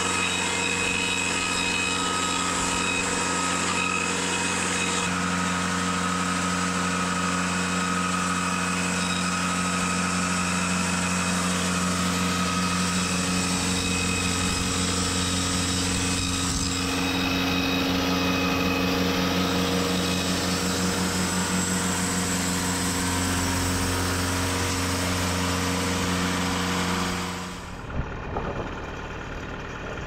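TimberKing 2520 portable band sawmill's engine running steadily while the band blade cuts through a log. Near the end the sound drops off suddenly, followed by a few sharp knocks.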